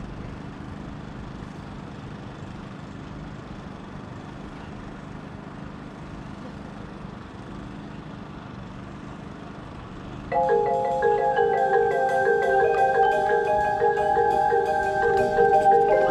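A steady low background hum for about ten seconds, then a drum corps front ensemble's mallet keyboards come in: sustained chords with a repeating pulse underneath and high bell-like notes above, opening the show.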